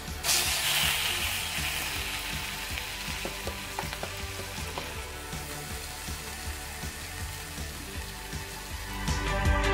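Marinated pork sizzling as it is laid into a hot cast-iron skillet: a sudden loud hiss as the meat hits the pan, easing over a couple of seconds into steady frying.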